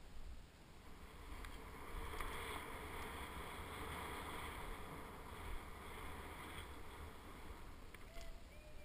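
Steady hiss of a rider sliding through soft powder snow, swelling about two seconds in and easing off toward the end, with low wind rumble on the microphone.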